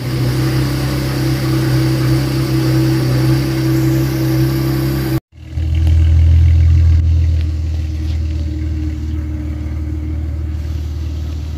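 Chevrolet Camaro V6 exhaust idling steadily. After a brief cut about five seconds in the note is deeper and louder, then settles.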